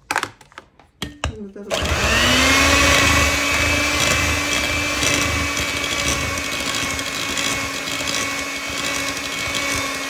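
A few light knocks, then about two seconds in an electric hand mixer switches on; its motor whine rises briefly and then runs steadily as the beaters whip an egg into creamed butter and sugar.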